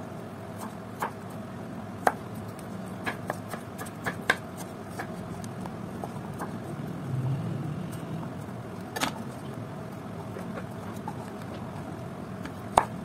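Kitchen knife slicing cucumber into strips on a plastic cutting board. The blade taps the board in irregular sharp knocks, one louder than the rest about nine seconds in, over a steady background hum.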